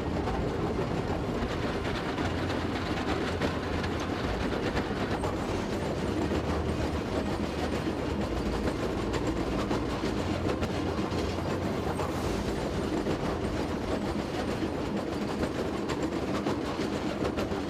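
Vermeer T1055 Commander 3 trencher at work, its engine running with a steady rumble while the digging chain cuts the ground with a dense, continuous rattling clatter.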